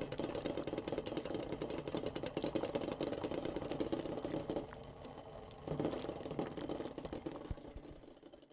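Eggs boiling in a pot of water, with a dense, rapid bubbling rattle. It drops away for about a second midway, comes back, and fades out at the end.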